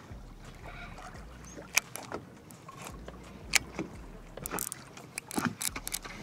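Choppy water lapping against a bass boat's hull, with a few sharp slaps and knocks, most of them bunched together in the second half.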